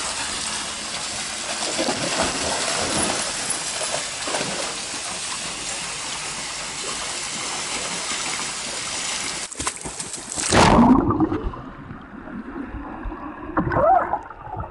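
Pool water splashing and sloshing as Labrador retrievers swim and play. About ten and a half seconds in there is a loud plunge, and the sound turns muffled and gurgling, heard from under the water.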